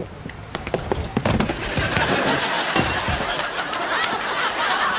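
Sitcom studio audience laughing, swelling into a steady wash of crowd laughter about a second and a half in.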